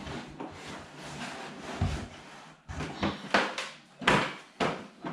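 Cardboard and plastic packing rustling as a hard plastic Bosch L-Boxx tool case is pulled out of a delivery box, then several sharp knocks of the case bumping against the box and table.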